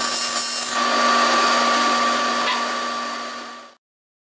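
AC TIG welding arc on aluminum, powered by a PrimeWeld TIG 325X: a steady buzzing hum with a hiss over it. It grows louder just under a second in and cuts off suddenly near the end.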